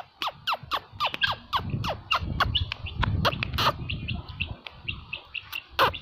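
Helmeted guineafowl calling: a quick run of short, downward-sliding calls, about three or four a second, giving way about halfway through to quicker, fainter short notes, with one loud call near the end.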